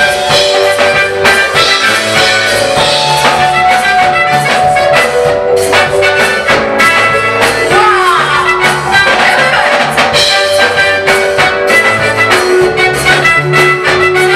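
Band music with a steady beat, bass and drums under a bright, sustained lead melody.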